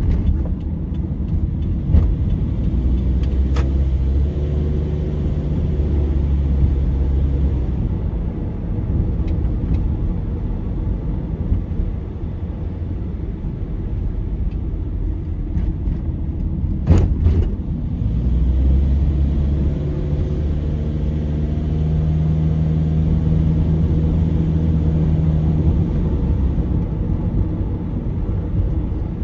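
A car driving on a town road: engine and tyre noise, with the engine holding a steady low drone twice as the car gets going, and a few sharp knocks, the loudest about two-thirds of the way through.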